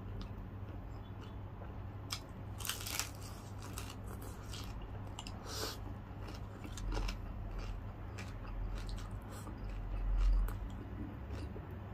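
Close-up biting and chewing of crispy deep-fried pork belly (lechon kawali), with irregular sharp crunches from the crisp skin, followed by low chewing sounds from a closed mouth.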